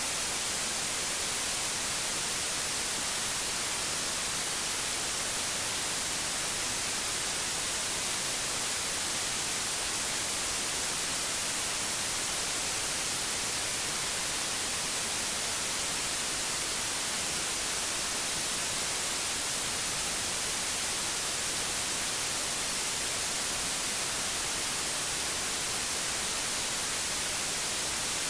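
Steady white noise: an even, unchanging hiss, heaviest in the high end, with no breaks or changes.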